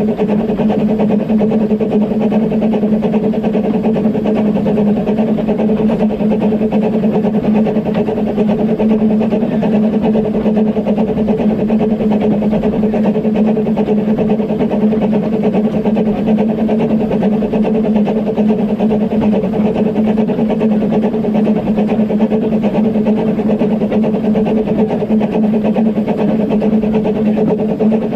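Narrow-gauge steam train behind the locomotive Dolgoch, making a steady, unbroken drone with two held low hums.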